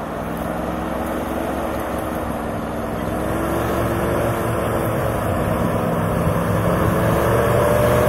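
All-terrain vehicle's engine running under load and revving up, rising in pitch and growing steadily louder as it takes a run-up.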